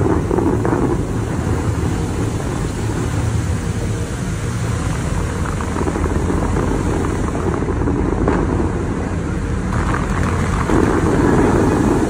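Steady rushing of the Dubai Fountain's water jets spraying, under a low rumble of wind on the microphone. The rush swells about a second in and again near the end.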